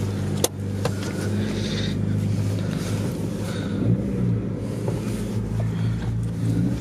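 Car engine running steadily, its pitch dipping and rising again about four seconds in as the revs change, with a sharp click about half a second in.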